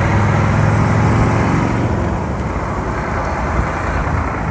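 Street traffic: a motor vehicle's low engine rumble passes close by and dies away about halfway through, leaving steady road noise.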